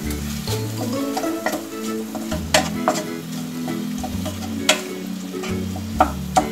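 A wooden spatula stirs and scrapes a tomato, onion and ketchup mixture frying in a non-stick kadhai. The food sizzles, and the spatula knocks sharply against the pan several times. Background music with a repeating bass line plays throughout.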